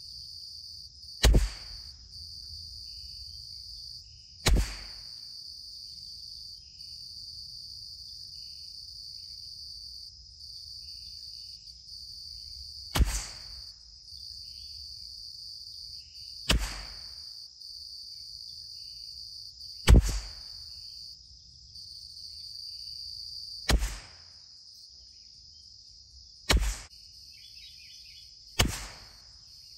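Eight single shots from a CZ 457 MTR bolt-action .22 LR rifle firing Eley Contact, each a sharp crack with a short tail, fired a few seconds apart at an uneven pace. A steady high-pitched buzz of insects runs behind them.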